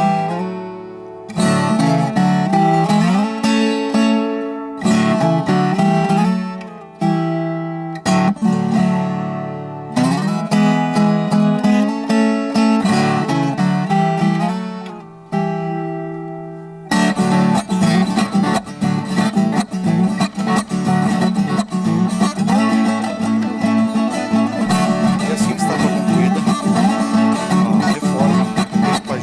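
Background music led by acoustic guitar: strummed chords that ring out one by one at first, then steadier, denser playing from about 17 seconds in.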